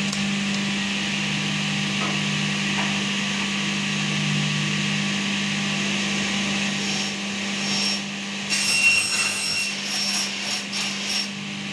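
Electric cut-off saw running with a steady hum. In the second half its circular blade cuts through an aluminium window profile, a harsh, uneven sawing with a high ringing tone that is loudest about nine seconds in.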